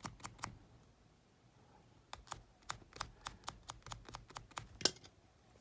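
Light, irregular clicks and taps of a small metal contact tab being fitted back into a Walkman's plastic battery box: a few at the start, then a quick run of about a dozen from about two seconds in, the sharpest near the end.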